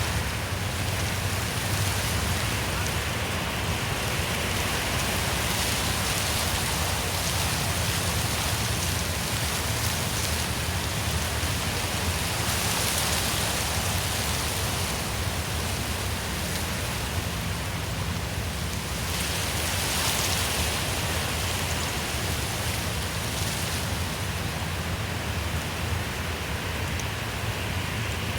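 Wind blowing through forest trees: a steady rushing hiss that swells in gusts a couple of times.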